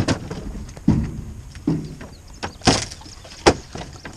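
Wooden knocks and bangs from tearing down a nailed board structure: about five sharp blows, roughly one a second and irregular, some with a dull woody ring.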